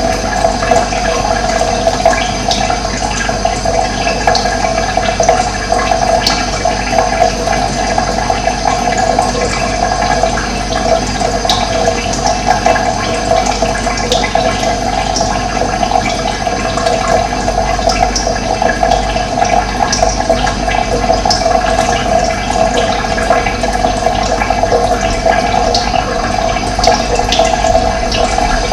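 Running water flowing steadily, with short high bird chirps scattered through it.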